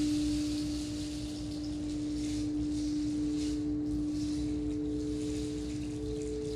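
A singing bowl's sustained low hum, with a second, higher tone swelling in about halfway through.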